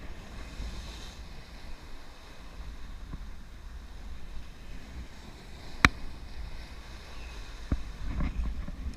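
Steady low wind and water noise with a sharp click about six seconds in and a few lighter knocks near the end.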